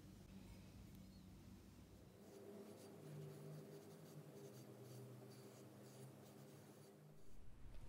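Faint scratching and rubbing as a soft brush and then a sponge are worked over the surface of an unfired clay dish, in short repeated strokes.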